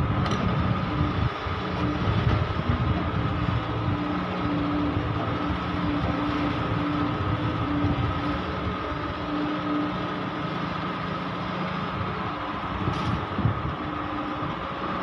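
Caterpillar 320D hydraulic excavator's diesel engine running steadily under working load as the machine digs and swings, with a steady high hum over the engine note. There is a short knock just after the start and another about thirteen seconds in.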